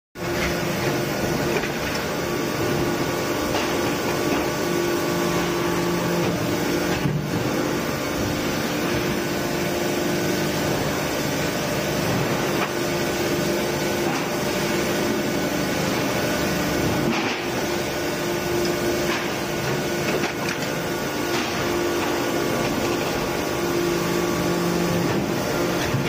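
Deep-drawing press in a stamping shop running with a steady mechanical hum and whine, briefly dipping twice.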